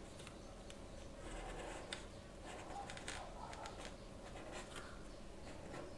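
Marker pen scratching on paper in short, irregular strokes as it traces an outline, with one sharper tick about two seconds in.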